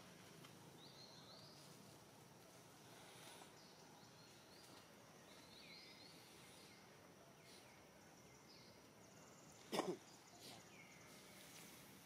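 Faint outdoor ambience with a few faint high chirps. About ten seconds in, one short, loud sound falls quickly in pitch.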